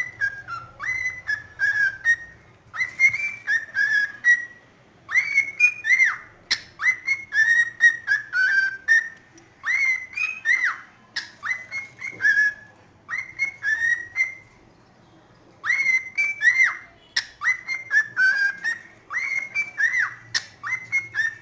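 Cockatiel whistling its song: phrases of short, clear whistled notes that swoop up and down in pitch, broken by brief pauses.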